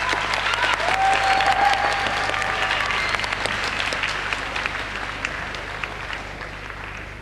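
Studio audience applauding, loudest a second or two in, then dying away.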